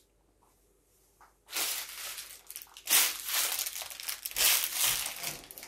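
Crunching footsteps in snow, a sound effect of about six crunches that starts about a second and a half in.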